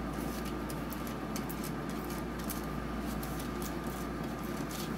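Steady machine hum in a small room, with faint, irregular light scratches and ticks of a metal dab tool scraping rosin on parchment paper.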